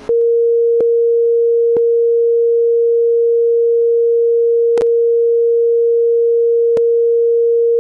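Steady, loud censor bleep: a single unwavering mid-pitched tone laid over the audio to blank out the Social Security number being spoken.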